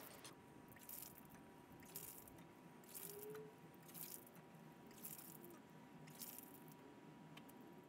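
PVC hand well pump being worked by its handle, with a faint wet splash about once a second as each stroke pushes out water.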